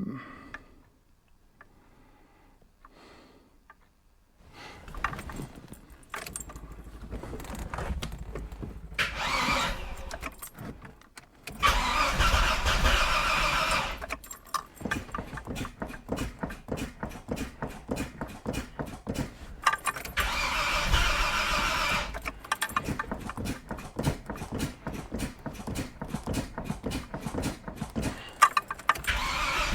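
Starter motor cranking the freshly rebuilt 2.8-litre Vauxhall CIH straight-six in long spells, the engine turning over with a rapid, even beat but not firing. The engine has oil pressure but may have no spark.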